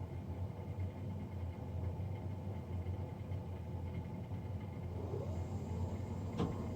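Navien NCB-240 combi boiler's fan running with a loud, steady low drone, the abnormal fan noise the owner is recording. A sharp click comes near the end.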